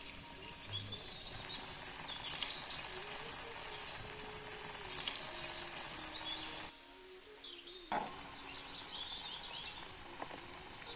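Hot oil sizzling and crackling as pieces of lasia spinosa mixture deep-fry in a metal pan. The sizzle surges loudly three times in the first five seconds, dips briefly about two-thirds of the way through, then carries on steadily.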